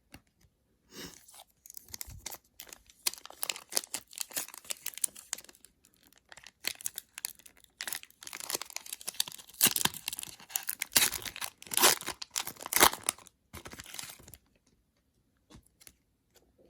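A trading card pack's wrapper being torn open and crinkled by hand, with bursts of crackling that are loudest about ten to thirteen seconds in.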